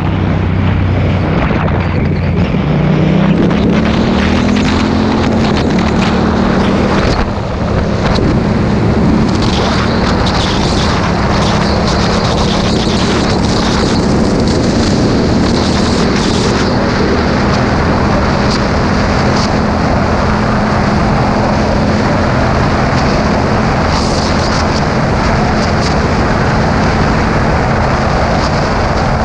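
Motorcycle engine heard from the rider's seat, rising in pitch over the first few seconds as it accelerates, dipping briefly about seven seconds in, then holding a steady note at cruising speed. Heavy wind buffeting on the microphone runs under it throughout.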